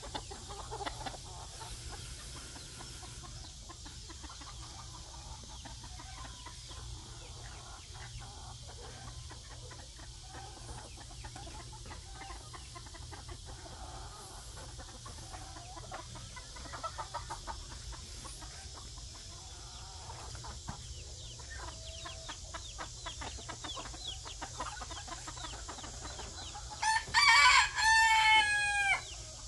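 Phoenix bantam roosters making faint scattered clucks and calls, then one rooster crowing loudly near the end, the crow dropping in pitch at its close.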